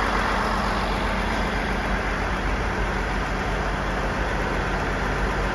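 Diesel multiple unit engine idling at a standstill: a steady low drone that does not change.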